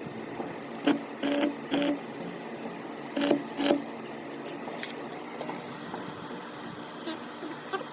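Welding arc struck in five short bursts, each a brief buzz, over a steady background hiss: quick tack welds.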